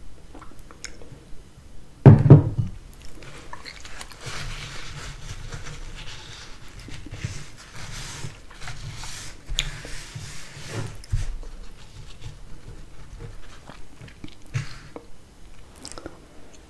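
Hot tea being drunk from a saucer close to the microphone: a heavy knock about two seconds in, then several seconds of soft, breathy sipping at the saucer, ending in a few small clicks.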